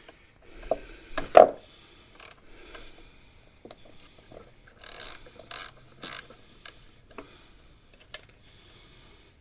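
Hand work with tools and parts: a run of scattered knocks and clicks, the loudest about a second and a half in, then a few short scraping rubs.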